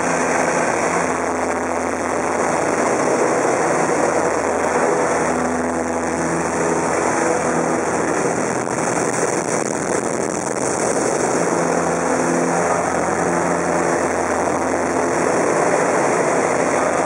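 Inside the cabin of a Super Decathlon in flight: its Lycoming four-cylinder engine and propeller drone over rushing air. The engine note wavers and shifts in pitch through the middle as the plane flies an aerobatic manoeuvre, then steadies near the end.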